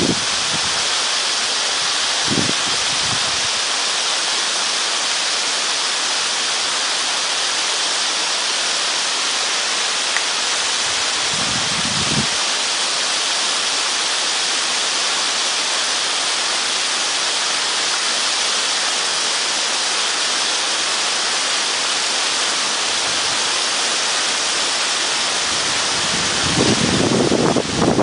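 Steady hiss of a tall waterfall, its water falling down a cliff face and breaking into spray. Low gusts of wind buffet the microphone briefly a couple of seconds in and again around the middle, and more strongly near the end.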